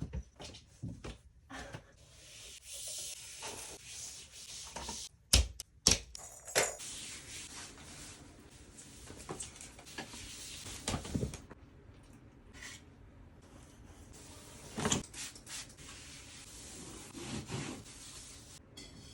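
Rubbing and scraping noises in long stretches, with two sharp knocks about five and six seconds in.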